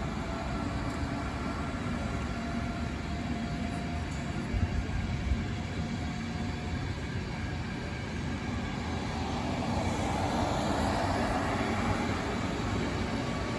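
A train running on the line: a steady rumble of wheels on rails, with a few sharp knocks about five seconds in, growing louder about ten seconds in.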